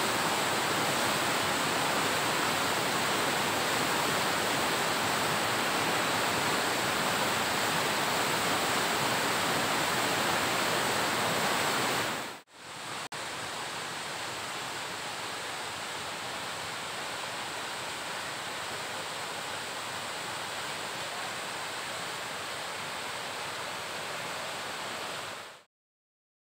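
Steady rush of a waterfall's falling water. It cuts out for a moment about halfway through, comes back somewhat quieter, and stops shortly before the end.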